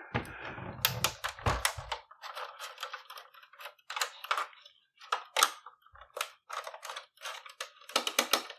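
Phillips screwdriver turning screws out of a PlayStation 4's power supply: a run of irregular small clicks and scrapes of metal and plastic, with some low handling knocks in the first two seconds.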